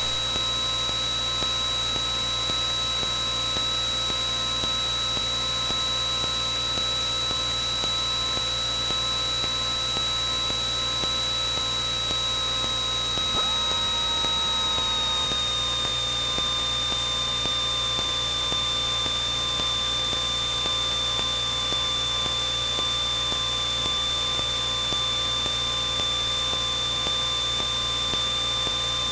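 Cessna 172N's four-cylinder Lycoming engine and propeller droning steadily in the cabin, heard as an even hum and hiss with a high whine on top. The pitch steps down slightly about halfway through.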